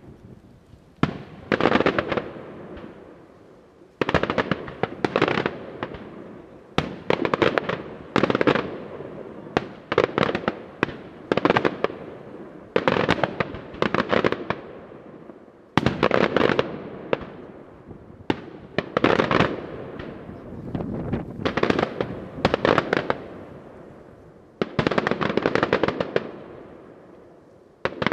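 Daytime aerial fireworks display: shells bursting in quick succession with a sharp bang every second or so, each trailing off in a run of crackling pops.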